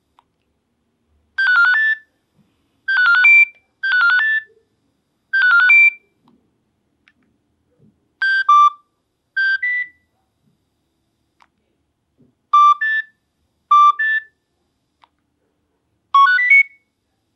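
Nokia 7650 playing one of its stock ringtones through its speaker: a melody of short electronic notes in brief phrases, about half a second each, separated by pauses. Four phrases come in the first six seconds, then pairs of phrases about every four seconds.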